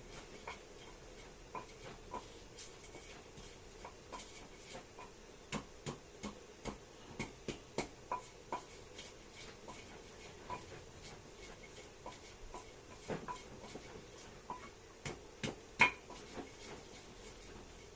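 Irregular light clicks and taps of kitchen utensils, some with a brief ring, roughly one to two a second, with a louder knock near the end.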